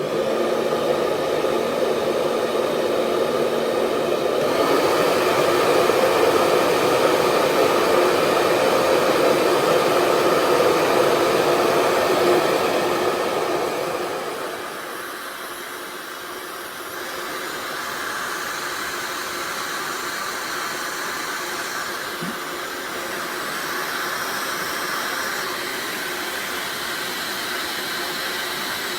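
ghd Helios hair dryer running steadily, a rush of air with a faint whine in it. About fourteen seconds in it gets quieter and its tone changes, then runs on evenly.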